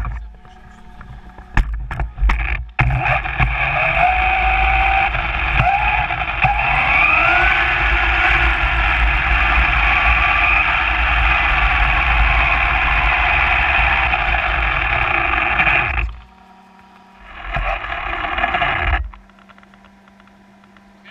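Onboard sound of a Traxxas Slash 4x4 electric RC short-course truck driving: a few knocks, then a loud, steady motor and gear whine whose pitch rises and falls with speed. It cuts off suddenly about sixteen seconds in, then comes back briefly for a couple of seconds.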